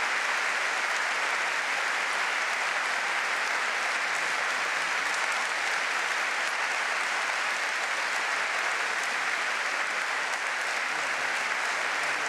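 A large audience applauding steadily, an unbroken clapping that neither builds nor fades.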